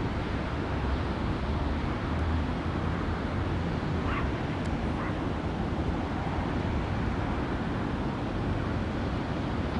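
Steady low rumble and hiss of wind on the microphone and surf, with two brief faint animal calls about four and five seconds in.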